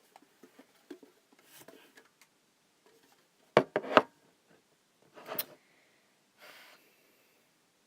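A metal collector's tin being handled: two sharp clicks about half a second apart a few seconds in, then brief rustling.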